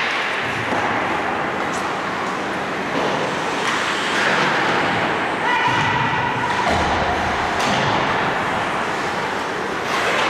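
Ice hockey game in a rink: steady noise of play with a few sharp knocks of sticks and puck. A held tone sounds for about a second, about six seconds in.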